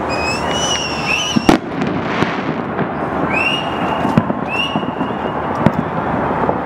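Fireworks display heard from afar: a sharp bang about a second and a half in and a few smaller pops later, over a steady rushing background. Several high whistles sound over it, one held near the start and two that rise and then level off in the middle.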